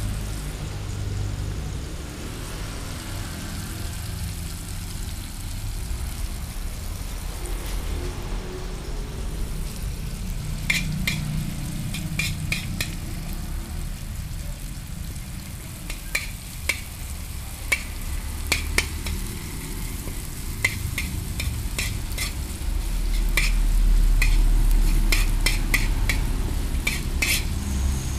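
Chopped shallots sizzling in a little oil in a flat pan. From about ten seconds in, a metal spoon stirs them with many sharp clicks and scrapes against the pan. A low rumble runs underneath and swells near the end.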